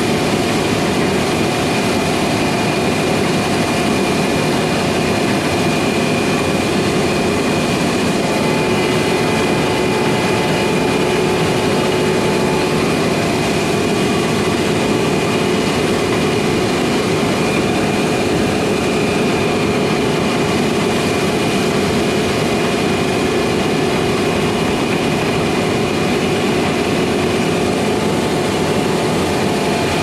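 Case IH combine harvesters running steadily while harvesting wheat: a continuous heavy engine and threshing hum carrying several steady whining tones, which shift slightly about halfway through.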